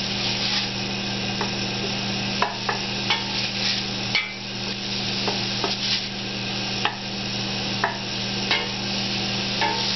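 Chopped garlic and shallots sizzling in hot oil in a stainless steel pot, stirred with a wooden spoon that knocks and scrapes against the pot about once a second. A steady low hum runs underneath.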